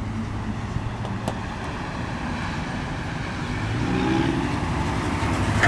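Steady low rumble of idling road vehicles and a distant passing container freight train, with a louder engine hum swelling from about three and a half seconds in.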